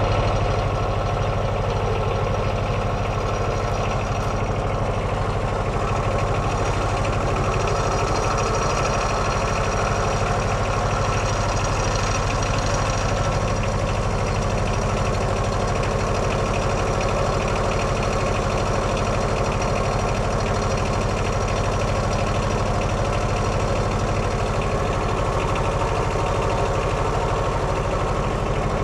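Kohler 17 hp diesel engine of a Wood-Mizer LT15 sawmill running steadily at an even speed.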